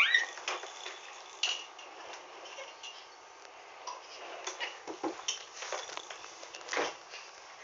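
A baby's short rising squeal, then scattered light clicks and knocks from plastic baby walkers on a wooden floor.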